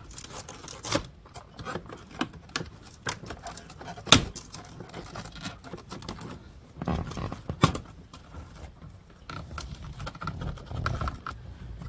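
Irregular clicks, knocks and scraping of a wood-grain dash trim plate being worked loose by hand from around a cassette head unit, with a sharp click about four seconds in and another just before eight seconds.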